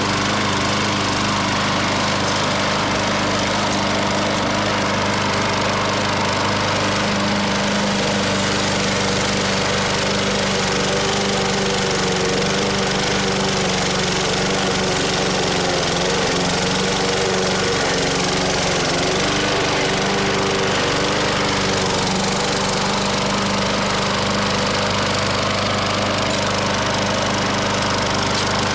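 Yard-Man 21-inch walk-behind mower's 7 HP single-cylinder engine running steadily and smoothly, purring like a kitten with its carburettor freshly cleaned.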